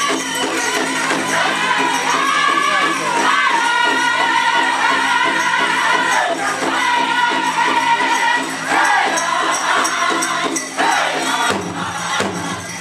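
Powwow drum group singing a prairie chicken dance song: several voices holding high-pitched notes together over the drum. The held singing thins out near the end.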